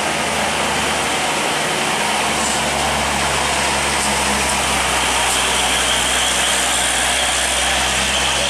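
Road traffic climbing a steep hairpin bend: a steady low diesel truck engine drone under continuous road noise. The engine sound grows stronger about two seconds in as the truck draws close.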